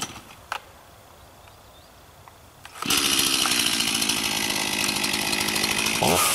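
Stihl MS251C two-stroke chainsaw catching about three seconds in after a quiet pause, then running steadily and revving up near the end.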